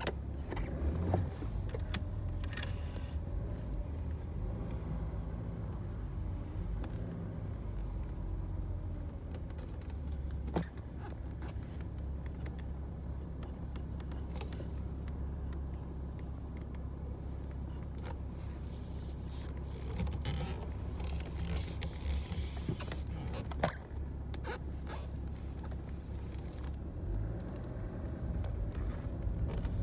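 BMW being driven, heard from inside the cabin: a steady low engine and road drone, with a few light knocks. The engine starts to rise as the car speeds up at the very end.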